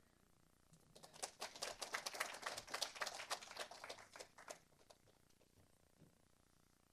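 Brief, scattered applause from a small group, starting about a second in and dying away after a few seconds.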